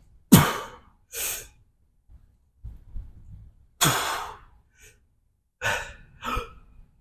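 A man breathing hard from exertion while lifting weights, with five short, forceful breaths: two close together near the start, one about four seconds in, and two more near the end.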